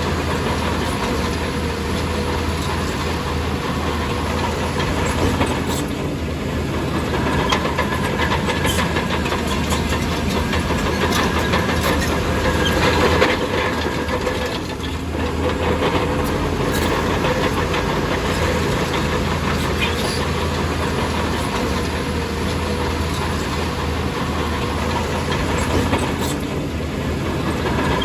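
Heavy diesel earthmoving machinery running steadily, with a deep engine drone and occasional sharp metallic clanks.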